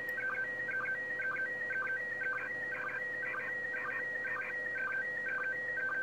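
Slow-scan television (SSTV) picture signal from the International Space Station's 145.800 MHz FM downlink, received on a ham radio's speaker: a warbling tone pattern that repeats about twice a second, one repeat per scan line of the PD120 image, with a steady lower tone underneath. The signal is noisy, not a perfect copy.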